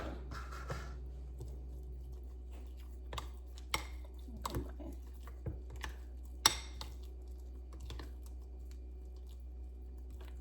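A utensil stirring a thick chickpea and mayonnaise mixture in a bowl, with scattered clicks and taps against the bowl, the sharpest about six and a half seconds in.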